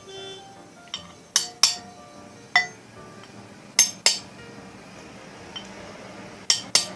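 Ball bearing being hammered into a ceiling fan's body: about seven sharp metallic strikes, mostly in pairs, each with a short ringing clink.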